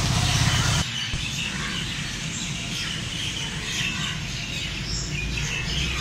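Wild birds chirping here and there over quiet woodland ambience. A low rumble in the first second stops abruptly.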